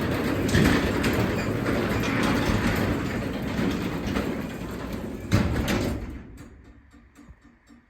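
Craftsman 3/4 hp belt-drive garage door opener closing the door, a steady running noise of motor and door travel. A sharp thump about five seconds in as the door meets the floor, and the noise dies away about a second later as the opener stops.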